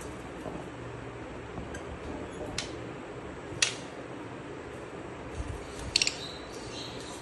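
Rosy-faced lovebirds giving short, sharp high-pitched chirps: one about two and a half seconds in, a louder one a second later, then a quick cluster of chirps around six seconds as the two birds scuffle with flapping wings. A steady faint background noise runs underneath.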